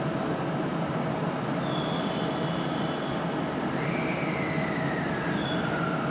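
521 series electric multiple unit standing at a station platform, its onboard equipment humming steadily over a constant noise.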